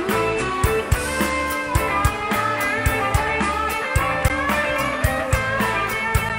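Live rock band playing an instrumental passage: a Stratocaster-style electric guitar plays a lead line with sliding, bending notes over steady drum-kit hits and a low bass line.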